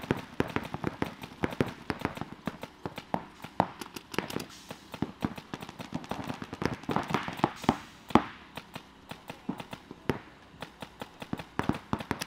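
Paintball markers firing: sharp pops in quick irregular strings, several guns overlapping.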